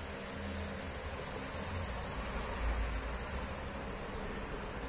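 Steady high-pitched background drone over faint room noise, with a low rumble that swells briefly about halfway through.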